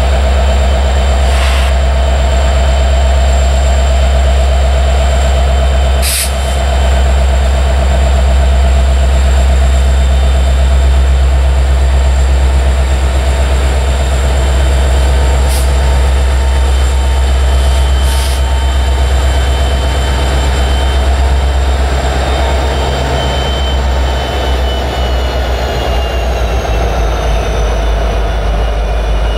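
Diesel locomotives of a freight train passing close: a Norfolk Southern EMD SD70ACe leading, with a Union Pacific GE unit and an NS EMD unit behind it. A loud, steady low engine drone with a high whine and a few sharp clicks; the whine falls in pitch near the end as the units go by.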